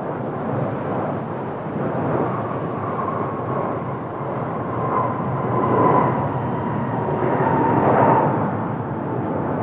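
Airbus A350-900's Rolls-Royce Trent XWB turbofan engines on a landing pass: a steady jet rush with a whine that sinks slightly in pitch, swelling louder about six and again about eight seconds in.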